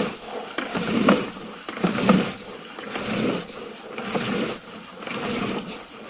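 Sewer camera push cable being fed down the pipe hand over hand, a rumbling scrape coming in surges about once a second.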